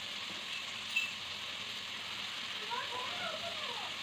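Mutton, onions and spice masala frying in oil in an aluminium pot, giving a steady, quiet sizzle.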